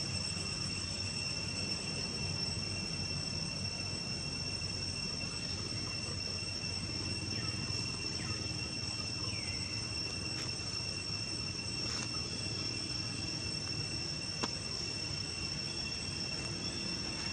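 Steady high-pitched insect chorus in the trees, holding two unchanging tones throughout. A few faint clicks and short chirps sound over it.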